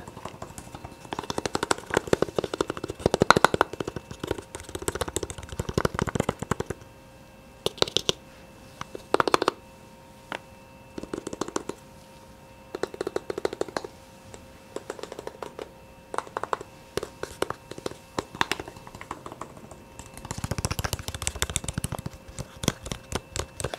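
Rapid, soft ASMR tapping in quick bursts: a dense run of taps for the first several seconds, short scattered bursts through the middle, and another dense run near the end.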